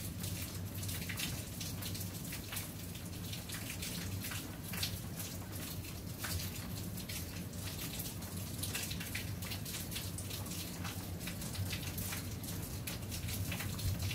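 Steady rain falling, with many sharp individual drops landing close by at an uneven pace, over a faint low steady hum.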